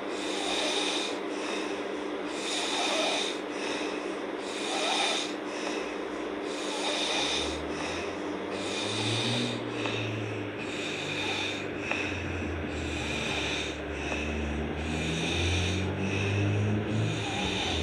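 A girl snoring hard in deep sleep, rasping breaths swelling and fading about once a second. A low, uneven rumble joins in about halfway through.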